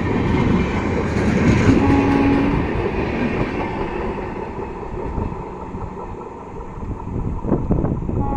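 Passenger coaches of the Rajdhani Express running past at speed, wheels clattering rhythmically over rail joints.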